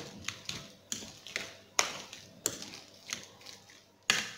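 A metal fork mashing avocado and chopped red onion in a ceramic bowl, its tines striking the bowl in irregular sharp taps, roughly two a second.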